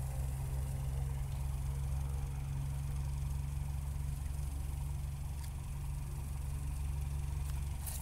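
An engine idling steadily, a low even hum with no change in speed.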